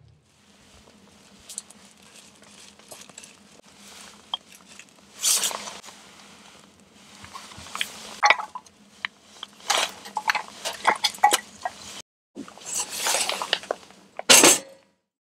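Wood campfire crackling: scattered sharp pops and clicks with a few louder bursts, over a faint steady hum, plus light clinks. The sound drops out briefly about twelve seconds in.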